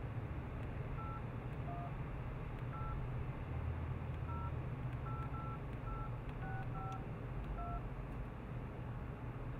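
BlackBerry Bold dialling tones: about ten short two-tone DTMF beeps, one per key press, at an uneven pace as a ten-digit phone number is keyed in, over a steady low hum.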